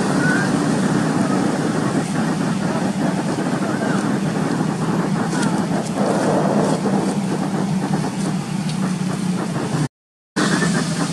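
Steady low motor hum with faint voices mixed in and a few short high chirps; the sound cuts out for a moment near the end.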